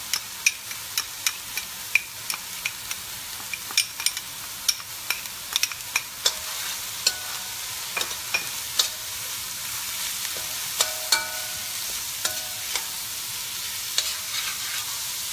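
Diced carrots, garlic and onion sizzling in oil in a stainless steel pan, with a steady hiss. A metal spoon stirs them, clicking and scraping against the pan about once or twice a second, with now and then a brief metallic ring.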